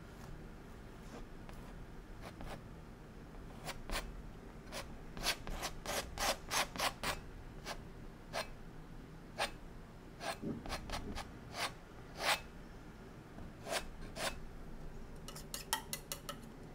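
Palette knife scraping oil paint across a canvas in many short, separate strokes, thickest in the middle, with a quick run of strokes near the end.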